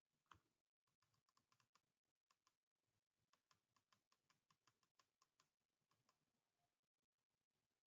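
Very faint typing on a computer keyboard: a run of light, quick key clicks, a few per second, with a short pause partway through.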